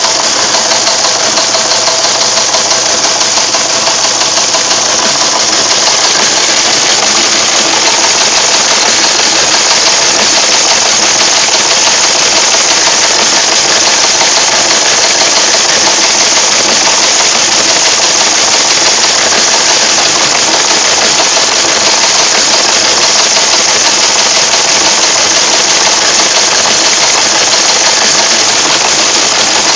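Teletype Model 15 page printer's typing unit printing continuously: a rapid, even clatter of its typebars striking, with the mechanism running steadily underneath.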